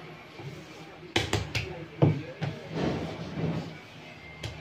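Sharp knocks and taps on a metal-sheeted worktable as a glass bottle and hands are set down and worked on it. There are several knocks a little over a second in and around two seconds, then two or three more near the end.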